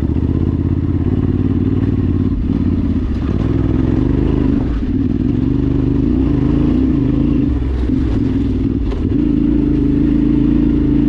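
Yamaha Ténéré 700's parallel-twin engine running steadily while riding, the engine note dipping briefly around the middle before picking up again.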